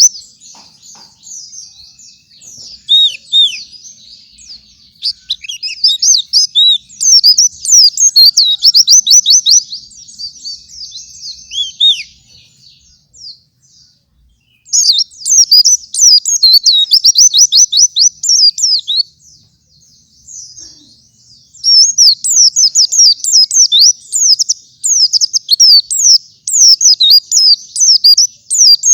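A white-eye (pleci) singing its fast, high-pitched twittering song in long unbroken bursts, stopping twice for a second or two. It is the rapid 'gacor' song of a bird in full voice.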